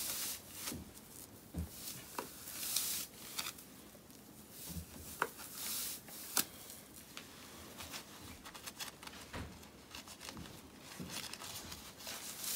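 Irregular rustling and swishing of a compression stocking's fabric being worked up the leg by hand, with a couple of sharp ticks midway.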